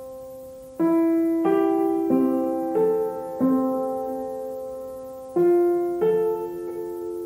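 Background music: slow, gentle solo piano, single notes struck about every half second and left to ring and fade, with one note held for about two seconds midway.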